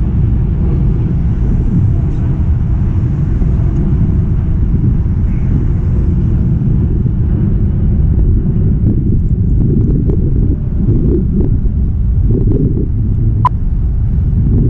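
Steady, loud low rumble of wind buffeting the microphone outdoors, with a single sharp click near the end.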